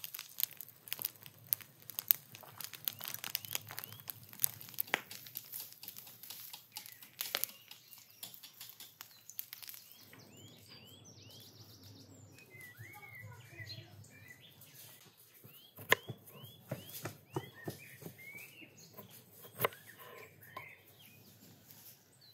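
Burning straw crackling and popping densely as the straw heap smoulders and smokes. About halfway through the crackle thins out and small birds chirp, with a couple of loud sharp cracks.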